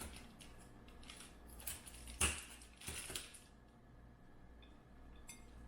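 Scissors snipping rose stems, with a few sharp snips and rustles of the flowers; the loudest is about two seconds in, with a cluster around three seconds.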